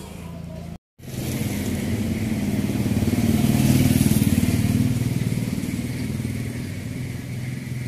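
An engine running steadily, swelling to its loudest about four seconds in and then slowly fading. It cuts out briefly just under a second in.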